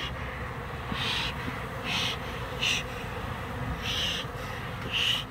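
Swarm of Africanized honeybees buzzing around an opened wild hive in a tree trunk. A short high call repeats about once a second over the hum.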